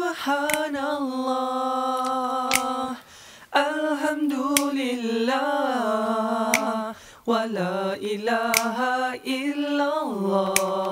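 A solo voice singing an unaccompanied nasheed, with long held notes and ornamented turns, pausing briefly twice. Sharp snaps come every second or two.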